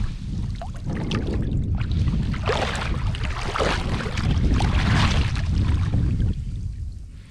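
Water splashing and sloshing while a mullet gill net full of fish is worked in the water, loudest in the middle, over a steady rumble of wind on the microphone.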